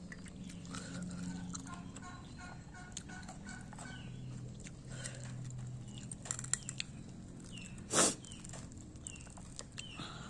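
Domestic chickens clucking and calling in the background, with a single loud sharp crunch or knock about eight seconds in.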